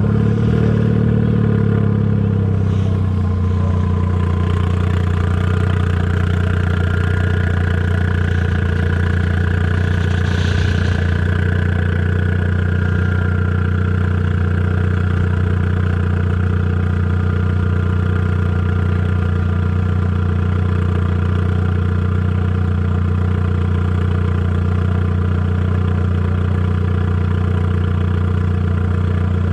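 Ford Fusion's turbocharged 2.0-litre EcoBoost four-cylinder engine running steadily at a constant speed. Its pitch drops slightly about two to three seconds in, then holds level.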